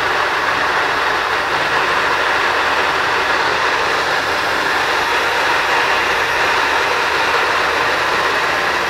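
Electric ducted fan, a motor-driven impeller in a plastic duct, running steadily at 90% speed: an even rush of air with a faint low motor hum.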